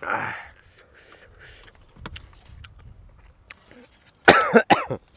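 Small clicks and crackles of a roast duck being pulled apart by hand. There is a short falling voiced sound at the start, and two or three short, loud pitched calls near the end.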